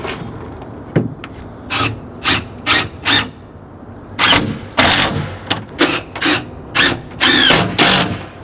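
DeWalt cordless drill driving screws into pine boards in about a dozen short bursts of the trigger. One longer run near the end has a whine that rises and falls.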